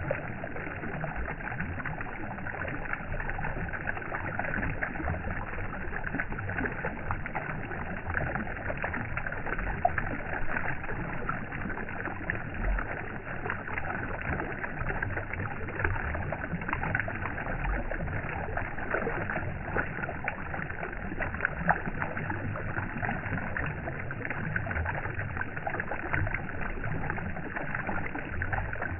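Water flowing steadily, an even crackling rush with no breaks.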